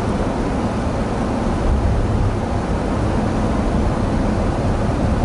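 Steady in-cabin driving noise of a Daihatsu Rocky 1.0-litre turbo 4WD rolling on packed snow: a low, even rumble of tyres and engine.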